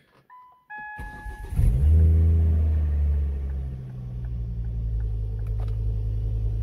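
A Ford Focus ST Mk2's turbocharged five-cylinder engine is cranked and catches about a second and a half in. It flares up loud for a couple of seconds, then settles to a steady idle. A couple of short electronic beeps sound just before it cranks.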